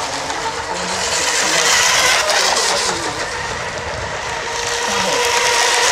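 Radio-controlled model racing hydroplanes running at speed, a steady distant engine buzz that dips a little in the middle and swells again near the end.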